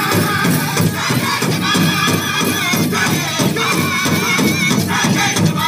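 Powwow drum group playing a chicken dance song: a big drum struck in a fast, steady beat under high, wavering voices.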